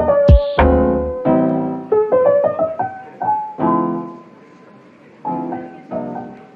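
Background music: a mellow piano melody with chords, a low thump sounding once just after the start, and the playing thinning out briefly before picking up again.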